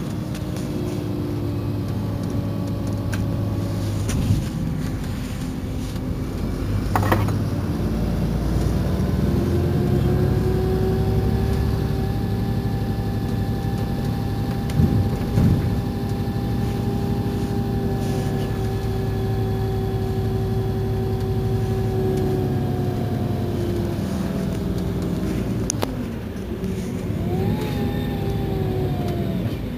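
Iveco Crossway bus underway: its engine and drivetrain tone climbs in pitch as it accelerates, holds steady for a long stretch, then falls as it eases off. Near the end it briefly rises and falls again, with a few sharp knocks along the way.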